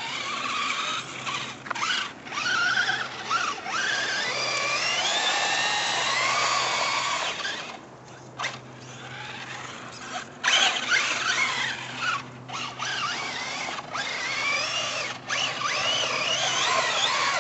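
Traxxas 4x4 RC short-course truck's electric motor whining, its pitch rising and falling with bursts of throttle and cutting out briefly several times as the truck is driven over dirt jumps.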